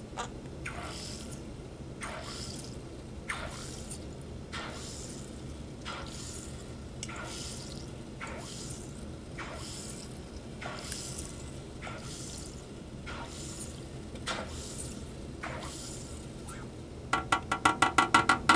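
Aquarium air stone bubbling in a small tank of water, with a gurgle about every two-thirds of a second. Near the end, a quick, louder run of sputtering, about eight a second, as the stone breaks the surface.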